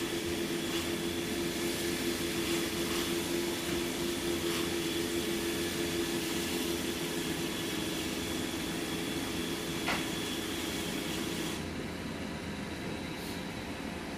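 iRobot Roomba i7+ robot vacuum running its motors with a steady hum and rushing whir as it docks. There is a single click about ten seconds in. Near the end the hum's pitched tone stops, leaving a slightly quieter steady rushing.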